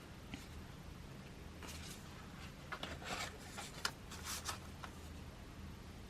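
Album contents being handled: paper, card and plastic rubbing and rustling, with a few light clicks and taps in the middle, over a faint low hum.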